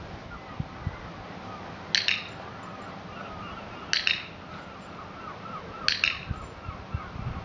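Dog-training clicker clicked three times, about two seconds apart, each a sharp double click-clack as the button is pressed and released, marking the puppy's position as it walks at heel.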